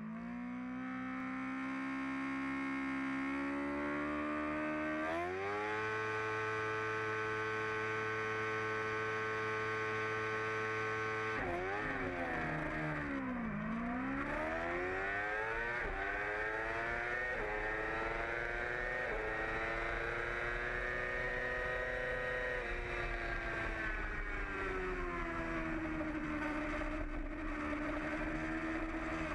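2008 Yamaha R6's inline-four engine, recorded onboard: revs climb and are held steady at the start line. About eleven seconds in they dip as the bike launches off the line, then rise through several quick upshifts. Near the end they fall away and pick up again through the first corners, with rising wind rush.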